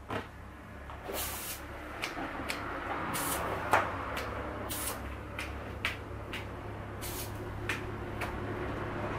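Aerosol spray paint can hissing out in a dozen or so short, irregular bursts, a few brief puffs and a longer spray about a second in, as white paint is spattered on in dots for stars.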